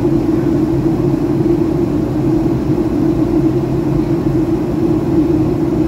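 Cabin noise inside a Boeing 757-200 airliner on its approach: a steady drone of engines and airflow with a strong, even hum low in pitch.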